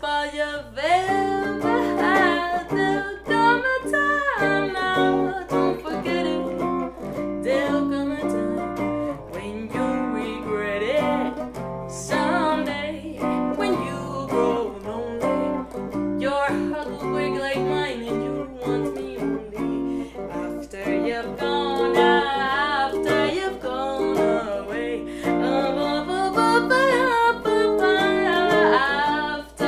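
A woman singing, with gliding, bending notes, accompanied by a hollow-body electric guitar played through an amplifier.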